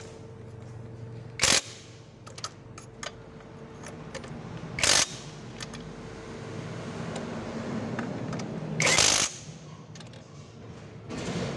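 Hand socket ratchet on a long extension tightening throttle body mounting bolts: four short, loud runs of ratchet clicking, about a second, four seconds and eight seconds in and again near the end, with lighter clicks and knocks of the tool between.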